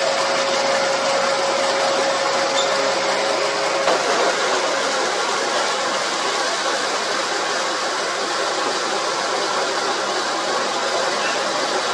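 Semi-automatic wood drilling machine running steadily, its bit cutting into a clamped door-frame timber and throwing off sawdust. A steady whine in the machine noise stops about four seconds in, with a faint knock.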